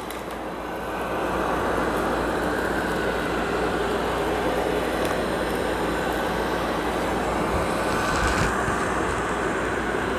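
Amarey A800 robot vacuum running at max suction over carpet, picking up kitty litter and pet hair: a steady motor and airflow noise that grows louder about a second in.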